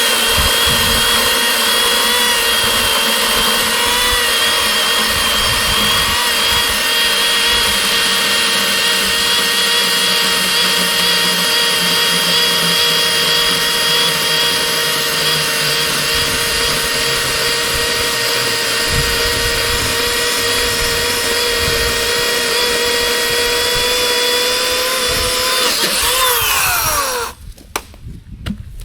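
Harbor Freight Atlas 80-volt brushless electric chainsaw running at full speed with a steady high whine. Near the end the motor winds down, its pitch falling, and it stops.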